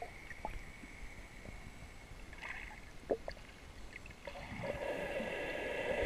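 Underwater sound picked up through a waterproof camera: low water noise with a faint steady high whine and a few sharp clicks, swelling into a louder rushing hiss for the last couple of seconds.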